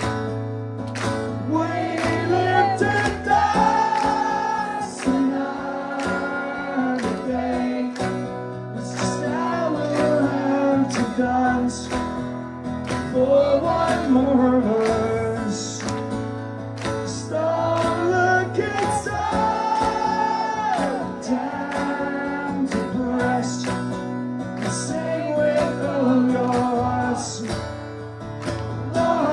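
Live acoustic performance: a man singing and strumming an acoustic guitar in a steady rhythm through the PA, with the audience singing along.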